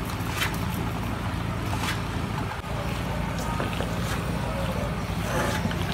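Stir-fried macaroni and vegetables being tossed in a pan with a silicone spatula: a few short scrapes and clacks over a steady low hum and hiss.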